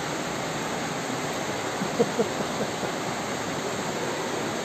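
Floodwater from a flash flood rushing through a street: a steady, continuous roar of fast-moving water.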